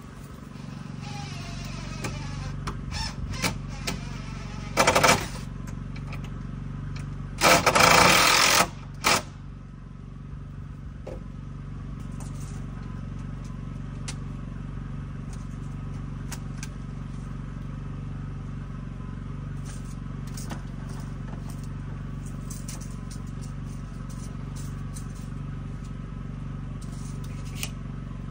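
A steady low hum with scattered knocks and clicks from carpentry on a timber frame. About five seconds in, and again from about seven and a half to nine seconds, a cordless power tool runs in short loud bursts.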